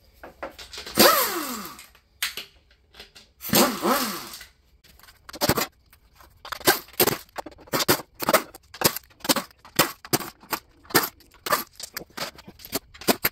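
Pneumatic air tool running out the oil pan bolts on a 4L80E transmission. Two longer runs with a sweeping pitch come about a second in and again near four seconds. They are followed by a quick string of short bursts and clicks, roughly two a second, through the rest.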